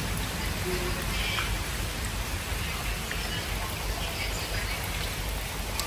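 Steady rain falling in the forest, a constant patter and hiss.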